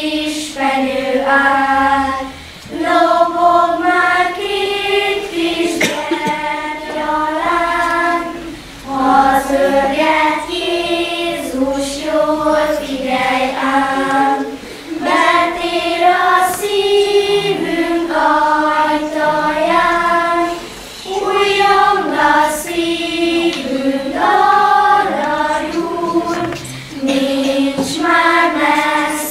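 Children's choir singing a song, in phrases broken by short breathing pauses.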